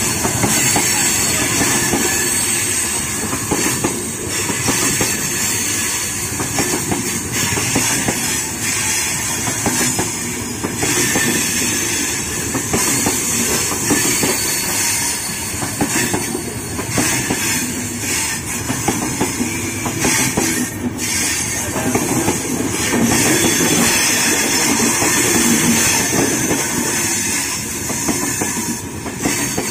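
Indian Railways Purva Express coaches running past at speed a few metres away on the next track: a loud, steady rush of wheels on rails and moving air that lasts throughout.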